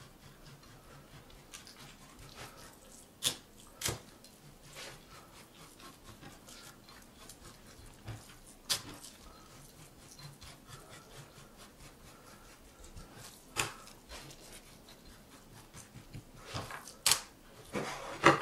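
Chinese cleaver scoring a raw fish fillet on a wooden cutting board: a sharp tap of the blade against the board every few seconds, then a quicker run of louder taps near the end.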